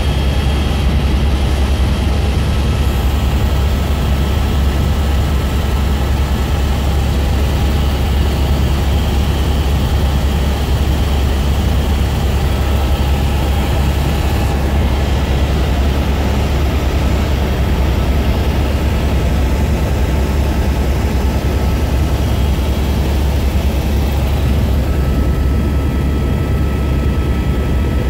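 Helicopter in steady flight, heard from inside the cabin: a loud, even rotor and engine drone, deep and unchanging, with a few faint steady high whines above it.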